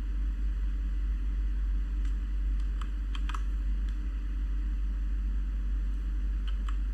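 A few keystrokes on a Cherry MX Brown mechanical keyboard: scattered sharp key clicks, several bunched in the middle and two near the end, over a steady low hum.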